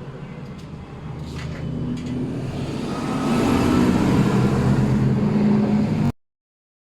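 Motor vehicle engine running with a steady hum that grows louder over the first three seconds, then holds. It cuts off suddenly about six seconds in.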